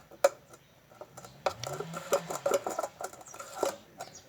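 A spoon stirring thickening slime in a bowl, with repeated clicks and scrapes of the spoon against the bowl. The glue mixture is setting after boric-acid activator has been added.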